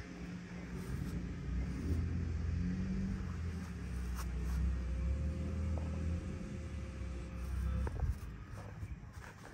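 Truck engine idling steadily with a low, even rumble, and a few light clicks over it.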